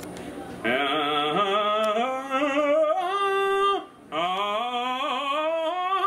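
A man singing in long, drawn-out notes, in two phrases with a short break about two-thirds of the way through.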